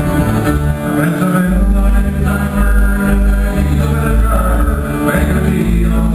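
Band playing country-folk music: guitar over a steady walking bass line, with a voice singing.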